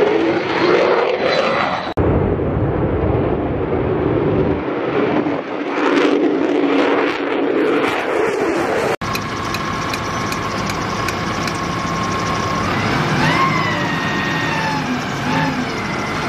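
F-35B fighter jet's engine noise as it flies overhead, swelling and fading for the first nine or so seconds. It cuts off suddenly and is replaced by a ground vehicle's engine running steadily, with a thin high steady tone.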